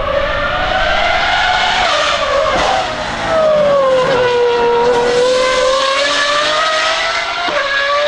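Pagani Huayra R's naturally aspirated V12, running through an unrestricted exhaust at high revs, gives a loud, screaming, high-pitched note. The pitch sinks about a third of the way in, bottoms out around the middle, then climbs again as the car pulls away.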